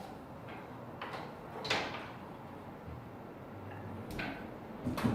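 Scattered knocks and scrapes of someone climbing the stairs up into a bell tower, the loudest about a second and a half in.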